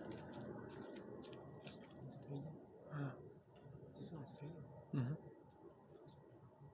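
Crickets chirping in a steady high trill over a faint low rumble, with two short low sounds about three and five seconds in.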